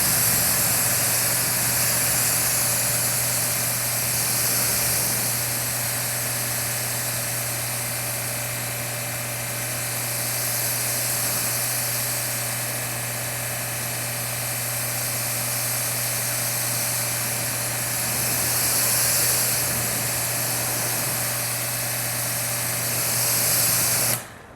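AR630 electric pressure washer running under load, its motor and pump giving a steady hum under the loud hiss of the water jet from the nozzle. It cuts off abruptly near the end, the sign of the trigger being released and the total stop system shutting the motor down.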